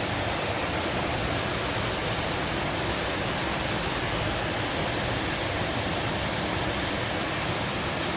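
Steady rush of water pouring over a dam.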